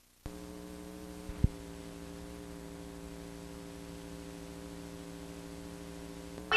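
Steady electrical hum made of several evenly spaced tones, with one sharp click about a second and a half in. The hum starts just after the beginning and stops abruptly near the end.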